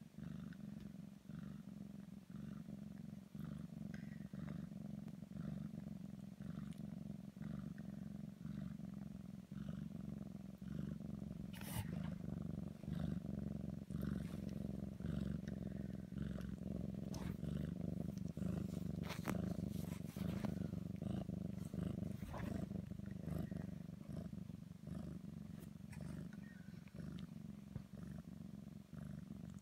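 Sphynx cat purring steadily, the purr pulsing with each breath, as the mother nurses her newborn kittens. A few sharp clicks and rustles come in around the middle.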